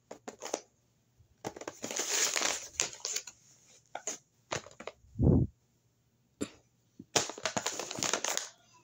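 Paper bag being handled, rustling and crinkling in bursts, with one dull low thump about five seconds in that is the loudest sound.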